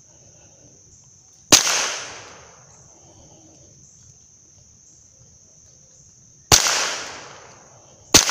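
Three single shots from a Marlin Model 60 .22 rifle fired as a group to check its sight adjustment. The first comes about a second and a half in, the second about five seconds later, and the third just before the end, each echoing away over about a second among the trees. A steady high insect drone runs underneath.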